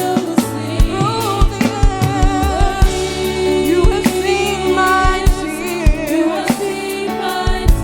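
Live gospel worship music: singers with vibrato over a full band with keyboard chords and drum kit.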